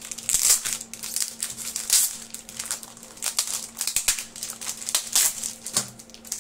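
Plastic wrapping crinkling and rustling in irregular bursts as hands unwrap and handle a stack of plastic-wrapped trading cards.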